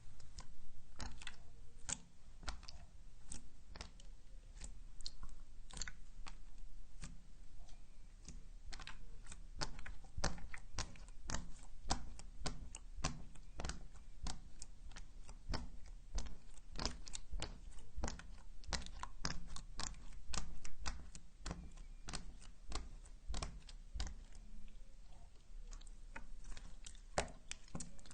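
Slime being squished and worked, making a dense, irregular run of small sticky clicks and pops.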